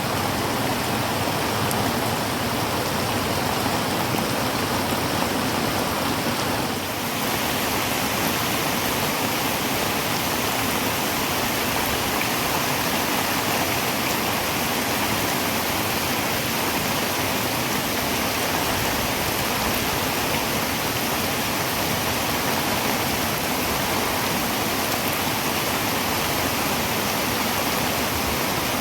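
Heavy rain falling on a tin roof: a dense, steady hiss. About seven seconds in, the hiss turns slightly brighter.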